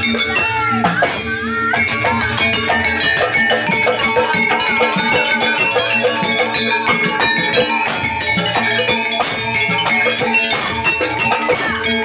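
Live jaranan music from a Javanese folk ensemble: dense, fast percussion strokes under wavering melody lines, with no break.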